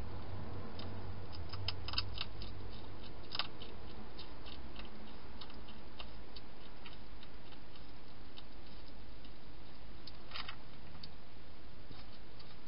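Irregular small crisp clicks over a steady low hiss, a flurry in the first few seconds and another cluster near the end: a wild hedgehog crunching dry food.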